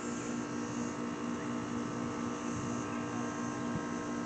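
Outdoor air-conditioning unit running with a steady hum, under a cicada chorus that rises and falls in waves.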